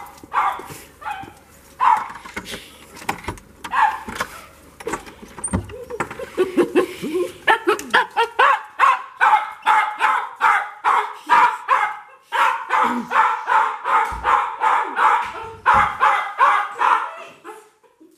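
Small dog barking excitedly as its owner comes home: a string of short, sharp barks, spaced out at first, then coming fast, about three a second, through the second half.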